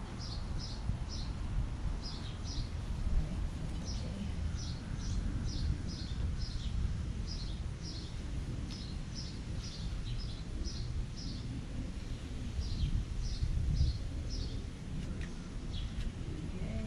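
A small bird chirping outdoors in short, high notes, about two a second, pausing briefly a little past the middle, over a steady low rumble of outdoor background noise.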